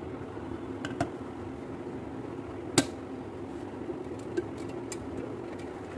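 Kitchen containers and utensils being handled and set down, giving a few sharp clicks and knocks over a steady low hum. The loudest knock comes a little under three seconds in.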